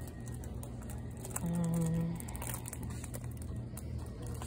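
Steady low hum of a shop's background noise with light handling rustle from the phone, and about a second and a half in a short held vocal hum from a person's voice.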